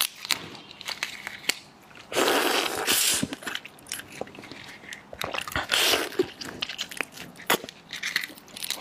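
Close-miked eating of raw red prawns: shells crackling and snapping in many small clicks as they are pulled apart, with two longer sucking slurps, one about two seconds in and one around six seconds.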